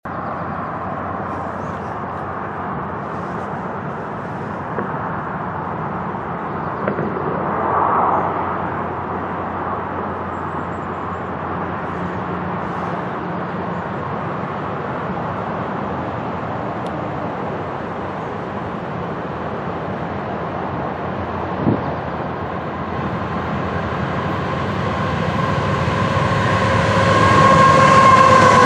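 Freight train led by GE diesel locomotives (an ET44AC and a C44-9W) approaching, growing louder over the last several seconds as the locomotives come up and pass, with a steady whine coming in near the end.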